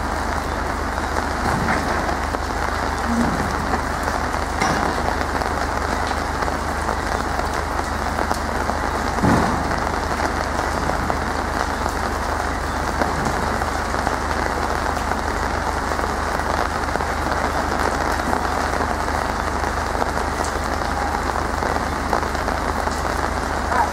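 Steady rain falling on wet ground and scattered boards, with one sharp knock about nine seconds in.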